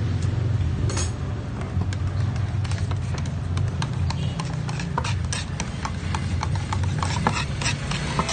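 Flat metal stirring bar clicking and scraping against the sides and rim of a tin of duco paint as the paint is stirred, in quick irregular taps that grow busier after a couple of seconds. A steady low hum runs underneath.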